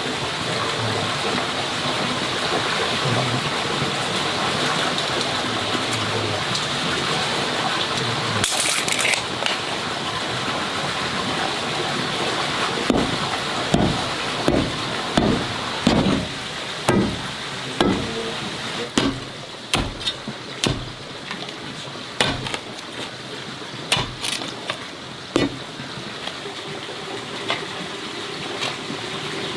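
A steady rushing noise, with a run of about a dozen sharp, dull strikes roughly one a second starting about halfway through.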